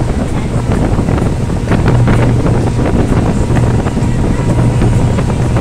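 A boat's engine drones steadily while under way, with wind buffeting the microphone and the wake rushing and splashing alongside.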